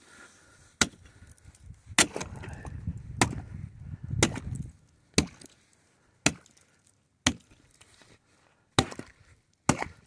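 A hand tool chopping into pond ice: about nine sharp blows, roughly one a second.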